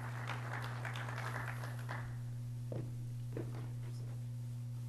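A low, steady hum in a lecture hall's audio feed. Faint rustling runs through the first couple of seconds, and two soft knocks come near the middle.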